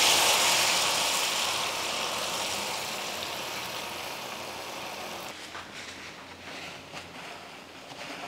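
Beaten egg streaming through a fine mesh strainer into a wok of very hot oil, the oil sizzling loudly as the thin egg strands fry into a crispy, lacy omelette. The hiss is loudest at the start and slowly dies down, turning to lighter crackling after about five seconds.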